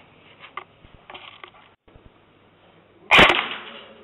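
A loud, sharp bang about three seconds in that dies away over about half a second, after a few faint clicks and knocks.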